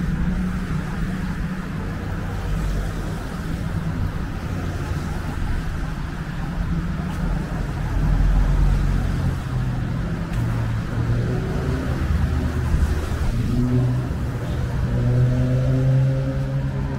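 Road traffic: cars driving past on a wet road, a steady mix of engine sound and tyre hiss. Near the end one vehicle's engine climbs in pitch as it speeds up.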